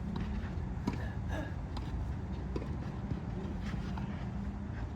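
Outdoor ball game in play: a few scattered sharp knocks of a ball being struck or bouncing, with footsteps, over a steady low rumble and faint distant voices.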